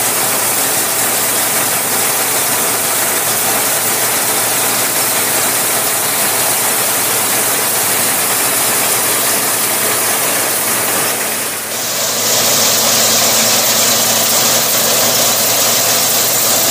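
Power-tiller engine running steadily, belt-driving a crop threshing machine that whirs and rattles as crop is fed into it. About twelve seconds in the sound briefly dips, then turns harsher and hissier.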